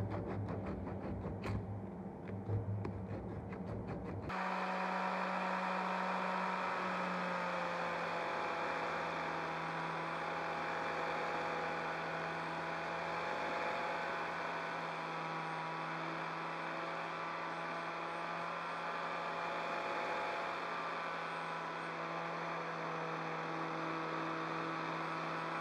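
Strip of sandpaper rubbed quickly back and forth over a knife's epoxy resin handle. About four seconds in, an angle grinder takes over, running with a steady whine as its disc works the steel blade.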